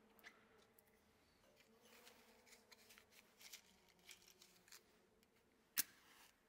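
A match struck once on its box, a short sharp scrape that flares, about six seconds in. Before it, faint small clicks and rustles of the matchbox and tealight being handled.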